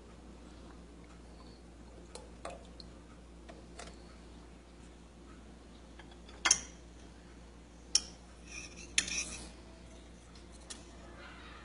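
Metal spoon clinking against a glass bowl while stirring a cream and condensed-milk mixture: a few light taps, then a sharp clink about six and a half seconds in, another about eight seconds in, and a short run of clinks and scrapes around nine seconds.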